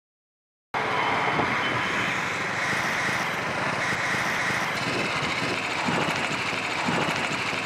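Motorcycle running with a steady rush of engine and road noise, which cuts in abruptly after total silence about a second in.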